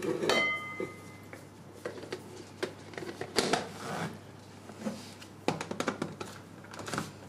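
Plastic clicks and knocks of a small food chopper's clear jar and white top being handled and fitted back in place over chopped cranberries. A brief high whine sounds in the first second.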